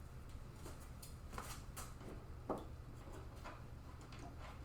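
Faint scattered clicks and taps as small spacers are handled and pushed under a motherboard, with one louder knock about two and a half seconds in.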